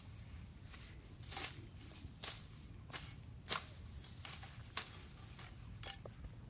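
A bladed digging tool chopping and scraping into dry, sandy ground: about six short, sharp strikes at uneven intervals, the loudest about halfway through.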